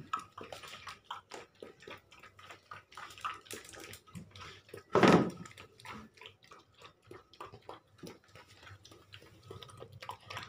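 Husky puppy eating wet mash from a stainless steel bowl: a steady run of quick wet lapping and chewing clicks, with one brief louder noise about five seconds in.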